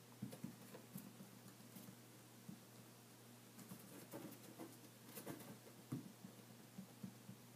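Light, irregular scratching and tapping on a cardboard box as fingers tease a kitten playing inside it.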